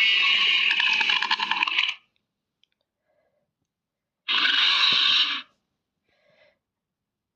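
Monster creature sound effect: two harsh, rasping screech-like calls, the first long and rattling, the second shorter, about four seconds in.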